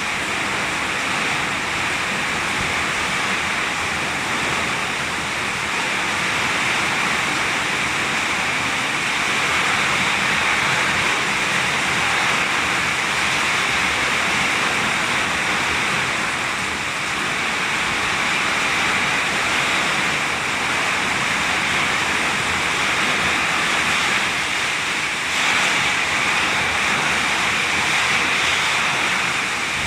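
Heavy rain pouring down in strong wind: a loud, steady, dense hiss that swells briefly about 25 seconds in.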